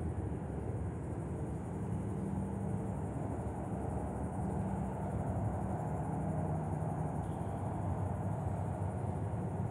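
Steady high-pitched insect buzzing, the chorus of cicadas and other scrub insects, over a constant low rumble.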